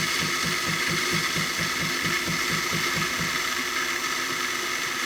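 Jura E8 super-automatic espresso machine frothing milk foam: a steady hiss with the pump pulsing about five times a second.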